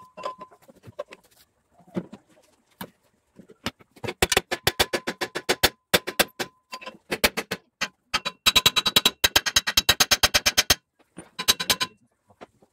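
Quick hammer blows, metal on metal, on the centre of a small single-cylinder engine's flywheel, striking to loosen it. The strikes come in runs with short pauses, starting about a third of the way in and fastest, about eight a second, in the second half, each with a brief metallic ring.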